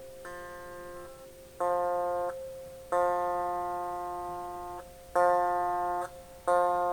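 Electric guitar's open fifth string, in an alternate tuning, plucked about five times on the same note, each pluck left to ring a second or more before it is stopped.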